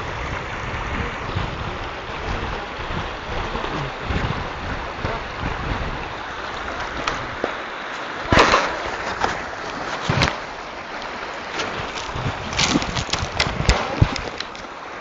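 Steady rushing noise of a river flowing over stones, mixed with wind buffeting the phone's microphone. Sharp knocks and clicks come about eight and ten seconds in, then a quick run of them near the end as the phone is handled and picked up off the pebbles.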